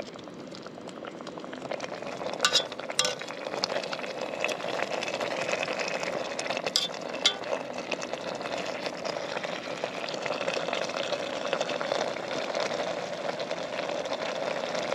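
Pot-roast liquid boiling in a lightweight backpacking pot over a Jetboil gas stove: a steady bubbling hiss, with a few sharp clicks about two and a half to three seconds in and again about seven seconds in.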